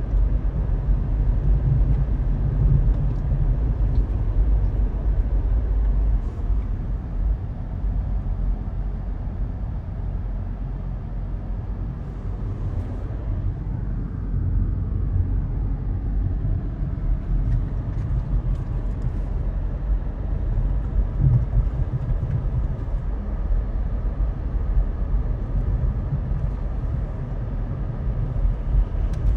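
Car driving slowly, a steady low rumble of engine and tyre noise.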